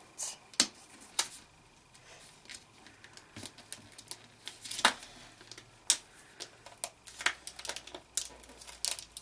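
Plastic Kinder Surprise toy capsule clicking in a child's hands as she struggles to twist and pry its two halves apart. The clicks come irregularly, about a second or so apart, with a few louder snaps among them.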